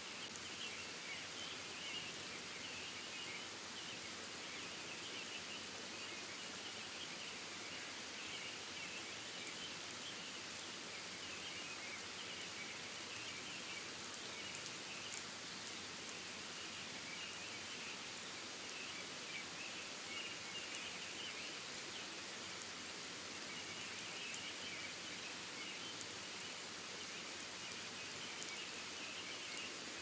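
Steady forest rain ambience: an even hiss of rain with scattered drops ticking, and a faint high chirring that swells and fades in the background.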